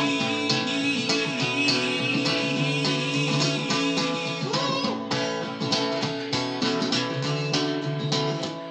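Acoustic guitar played with a mix of strummed chords and plucked notes, ringing over held bass notes.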